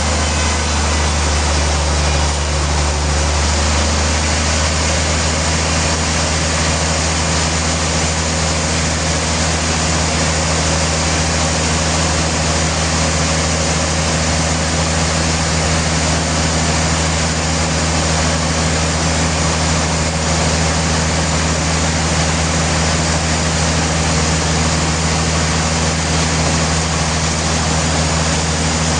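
Sawmill machinery running steadily: a low, even engine-like hum with a constant hiss over it, with a slight change in the hum about three seconds in.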